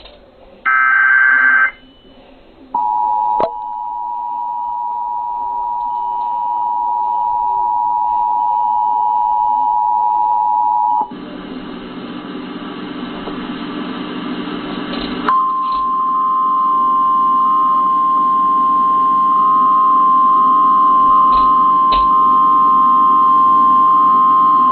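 Emergency Alert System tones: a last one-second warbling SAME data burst, then the two-tone EAS attention signal held for about eight seconds. Then comes about four seconds of hiss, followed by the single-pitch NOAA Weather Radio warning alarm tone held steady for about ten seconds.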